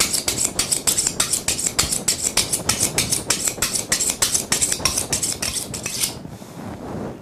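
A kitchen knife drawn rapidly back and forth along a sharpening steel, a quick metal-on-metal scraping at about six strokes a second, which stops about six seconds in.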